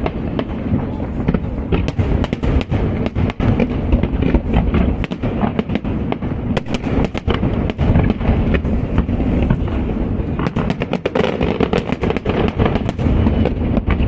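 Aerial fireworks display: a dense, continuous barrage of overlapping bangs and crackles with a heavy low rumble, no let-up between the bursts.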